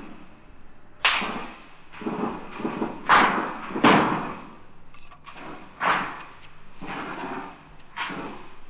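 Battle sound effect of irregular gunfire: sharp shots roughly a second apart, some louder than others, each with a short echoing tail.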